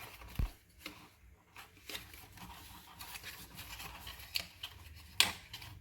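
Packaging and small plastic accessories being handled: light rustling with scattered sharp clicks, the loudest about five seconds in.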